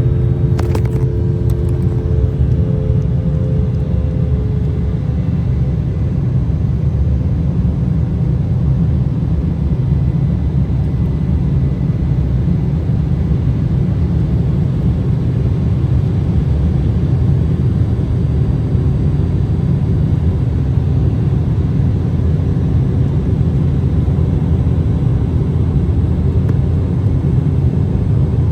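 Jet airliner cabin noise: a steady, loud low rumble of engines and airflow heard from a passenger seat, with a few faint clicks about a second in.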